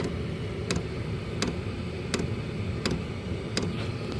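Hcalory Toolbox Compact 2 diesel heater running on its lowest setting: a steady low rumble of fan and burner, with the fuel dosing pump ticking regularly, about three ticks every two seconds.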